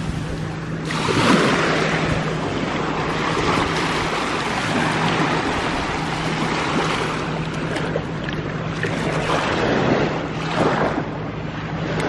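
Small waves washing in over sand in the shallows, surging several times, with wind buffeting the microphone and a steady low hum underneath.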